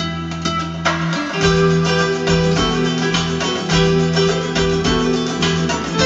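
Recorded music played through Castle loudspeakers: quick plucked-string notes over held bass notes.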